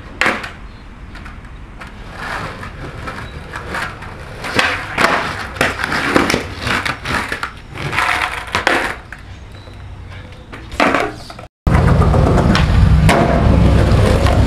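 Skateboard on concrete: a sharp clack of the board just after the start, then a run of irregular clattering and scraping as the board hits and slides on the ground. After a brief cut near the end, a loud low rumble of skateboard wheels rolling.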